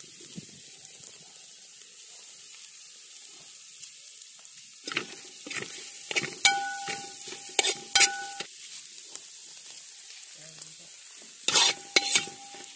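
Beef fry sizzling steadily in a wide metal pan. From about five seconds in, a metal spatula scrapes and stirs through it in strokes, and the pan rings briefly when struck, again near the end.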